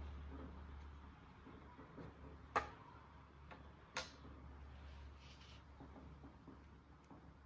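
Two sharp clicks about a second and a half apart, over a faint low hum: small toy pieces being handled.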